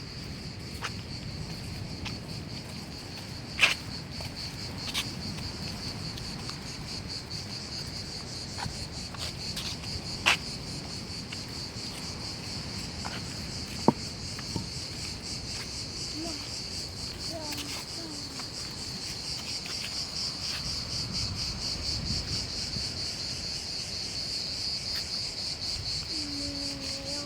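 Steady, high-pitched insect chorus: a continuous shrill buzz with fast, even pulsing. A few sharp clicks or knocks stand out above it, about four, ten and fourteen seconds in.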